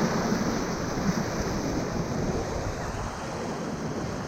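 Whitewater rapids rushing steadily, with wind noise on the microphone.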